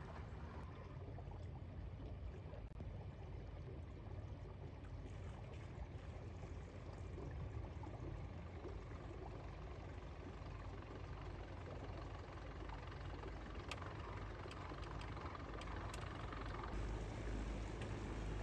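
Steady low rumble of a motorboat under way, with water washing past the hull, growing a little louder near the end.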